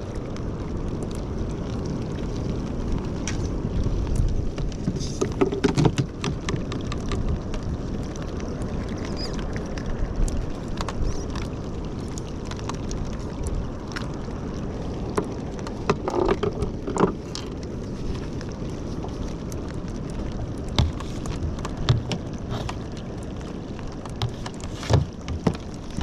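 Steady rush of wind and water around a sit-on-top fishing kayak at sea, with scattered knocks and clicks from handling the tackle and the catch. A few louder knocks come about five seconds in and again past the middle.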